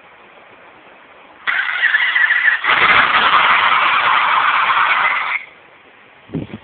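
Motorola Ferrari-edition flip phone playing an engine-sound ringtone through its small, thin-sounding speaker while its ringer volume is set. The sound starts about a second and a half in, gets louder about a second later and cuts off suddenly near the end.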